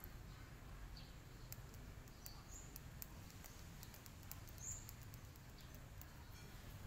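Quiet outdoor ambience: a faint low rumble with scattered light ticks, and two short high chirps from a small bird.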